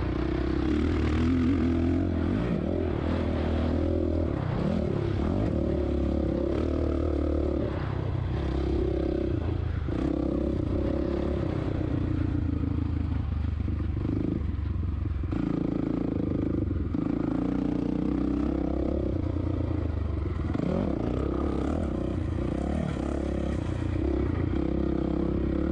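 The single-cylinder four-stroke engine of a 2007 Suzuki RM-Z450 motocross bike runs under race throttle, revving up and down through turns and straights. The revs drop briefly a few times past the middle.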